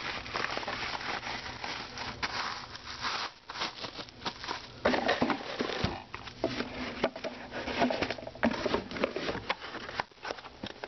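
Bubble wrap and a cardboard box being handled: irregular crinkling, rustling and small knocks as a radiator is packed back into its box and the box is closed.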